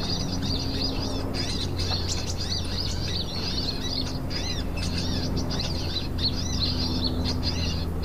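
Small birds chirping and twittering continuously in quick, high notes, over a steady low hum.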